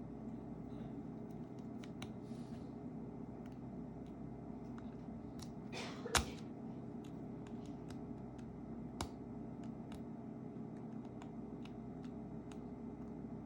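Small sharp clicks and taps of tools and parts during a phone repair, the loudest about six seconds in and another about three seconds later, over a steady low hum.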